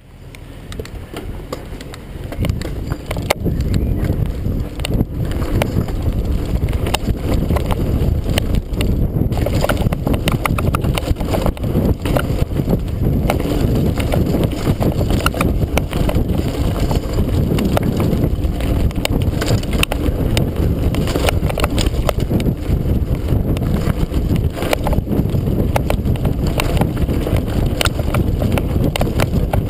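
Mountain bike riding fast down a dirt trail, heard from a handlebar-mounted camera: a continuous rumble of tyres and wind on the microphone, with frequent rattles and knocks from the bike over bumps. It is quieter for the first few seconds, then runs steady and loud.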